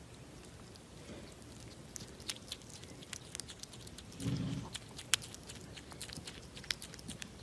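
Marmoset chewing and biting food close to the microphone: a run of small, quick clicks and crunches, with a brief low-pitched sound about four seconds in.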